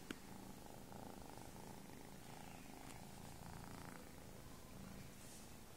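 Faint, steady purring of a kitten. A brief sharp click sounds right at the start.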